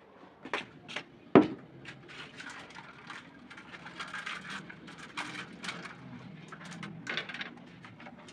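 Household objects being handled: a few sharp knocks in the first second and a half, the loudest about 1.4 s in, then scattered light clicks and rustling clatter.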